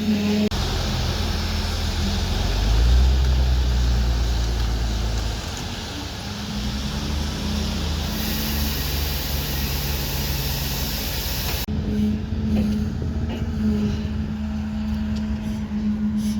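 Excavator's diesel engine running while it works, its note shifting in pitch and level and loudest about three seconds in. The sound changes abruptly twice, at edits in the footage.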